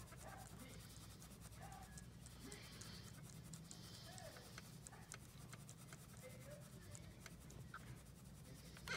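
Faint scratching and many small clicks over a low steady hum, close to near silence: a small fluffy dog gnawing and pawing at a toy.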